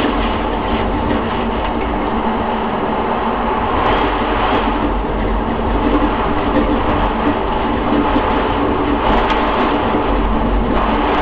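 Steady, loud roar of a rain-wrapped F3 tornado's winds, with a few scattered sharp ticks on top.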